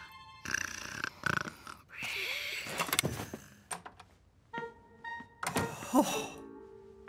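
Cartoon soundtrack without dialogue: a string of short sound effects (swishes and sharp knocks) with brief pitched musical notes between them.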